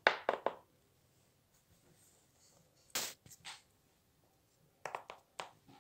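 Handling noise of small plastic toys on a tabletop: a cluster of light clicks and taps at the start, two more about three seconds in, and a few more near the end.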